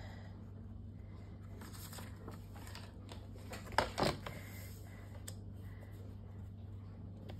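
Card and paper being handled and slid about on a plastic paper trimmer, with faint rustles and two light knocks close together about four seconds in. A steady low hum sits underneath.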